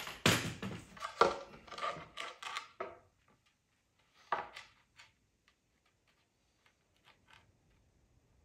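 Tool handling on a concrete floor: a corded drill with a long metal core bit is set down, and a plywood template is shifted into place, giving a run of clattering knocks and scrapes over the first three seconds. One sharper knock follows at about four seconds, then only faint ticks.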